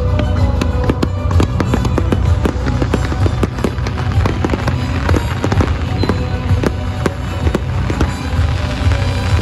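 Aerial fireworks going off in quick succession, a dense run of sharp bangs and crackles, with loud music playing underneath.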